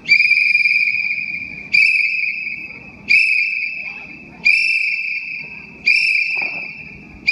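High, shrill whistle blasts about every second and a half, five in all, each starting sharply and fading away, keeping time for a school PT drill. A low murmur sits underneath.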